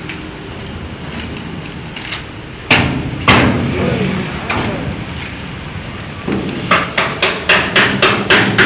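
Wooden planks knocking against a truck's cargo box as they are pushed up its side: two loud knocks about three seconds in, then a quick run of sharp knocks, about four a second, near the end.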